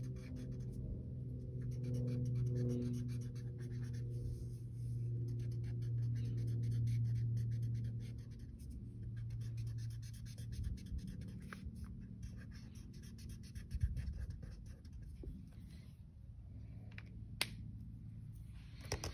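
Yellow marker scratching on paper as stars on a worksheet are coloured in: a quick, dense, scratchy rubbing. A low steady hum runs under the first half, and a couple of sharp clicks come near the end.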